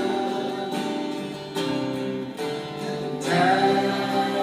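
Acoustic guitar strumming chords in a gospel worship song, in the instrumental gap between sung lines; the chord changes a few times.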